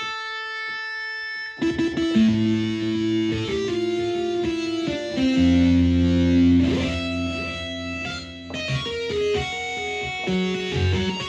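Yamaha MODX6 synthesizer playing a distorted electric guitar preset: one held note, then from about a second and a half in, low chords and single notes.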